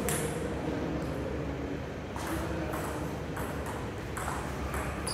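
Table tennis ball clicking off the bats and the table in a rally: one click right at the start, then a run of quick clicks about every half second from about two seconds in.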